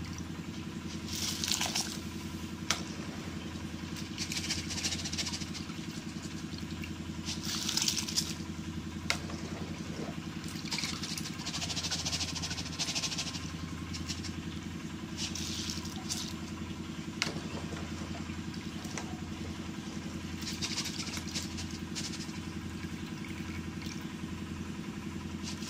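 Soaked cracked corn being scooped out of water with a metal mesh strainer and tipped into a pot of water: repeated short rushes of wet grain and draining water, with a few sharp clinks of the strainer against the pots. A steady low hum runs underneath.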